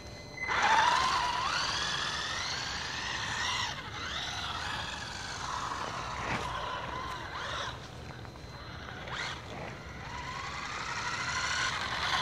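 WLtoys A959B four-wheel-drive RC buggy's electric motor and drivetrain whining, the pitch rising sharply about half a second in, then falling and rising again as the throttle is worked with the wheels spinning on ice. It climbs once more near the end.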